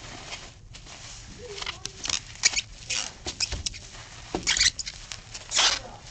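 Plastic bubble wrap crinkling and rustling in irregular bursts as it is pulled off a box by hand, with a soft low knock about three and a half seconds in.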